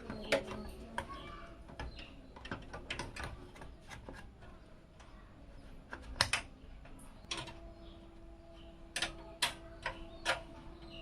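Irregular light clicks and taps of PC hardware being handled and fitted into a case, with a couple of louder clicks about six seconds in and a cluster near the end. A faint steady hum joins about seven seconds in.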